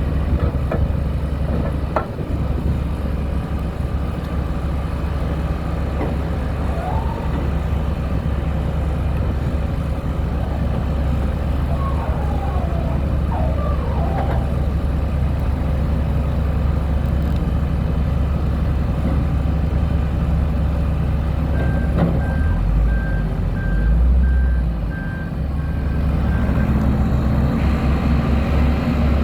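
Diesel engine of a 2002 Terex 760 loader backhoe running steadily, with a few short squeaks. Its reversing alarm beeps for several seconds in the later part, and the engine then speeds up near the end.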